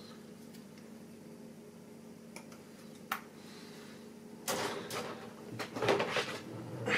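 Side cutters nipping 1/16-scale plastic kit parts off the sprue: a sharp snip about three seconds in, then a couple of seconds of clicking and rustling as the parts and sprue are handled on the bench.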